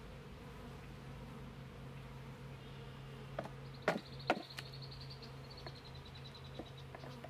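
A package of Russian honey bees humming steadily, with a few sharp knocks and taps from about three seconds in as the package is handled, and a faint thin high squeak lasting a few seconds around the middle.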